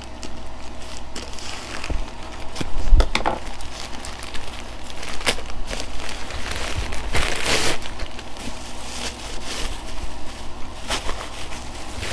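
Packaging rustling and crinkling as items are handled and unpacked, with scattered small knocks and clicks; the loudest rustle comes about three seconds in, and a longer one about seven seconds in.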